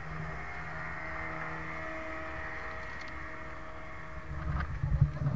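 A small passenger boat's motor running steadily under way, a low hum with a higher whine above it. About four seconds in, a run of louder low thumps and rumbles.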